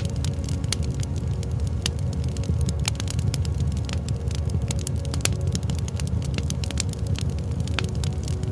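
Wood fire crackling: frequent sharp, irregular pops and snaps over a steady low rumble of the burning fire.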